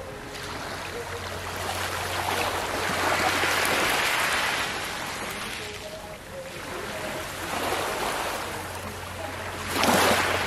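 Small waves lapping and washing up over a pebbly coral-rubble beach, rising and falling in slow surges. The loudest wash comes near the end.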